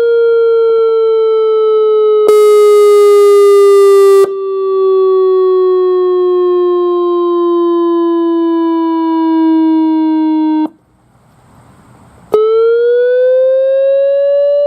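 ACA Alertronic AL-100 electronic siren sounding its wail: one steady tone gliding slowly down in pitch for about ten seconds, louder and harsher for about two seconds near the start. It cuts off suddenly, and after a short gap it starts again, rising in pitch.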